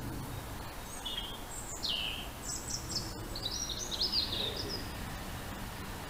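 A small songbird singing a quick, varied phrase of high chirps and falling notes, from about a second in until just before five seconds, over steady low outdoor background noise.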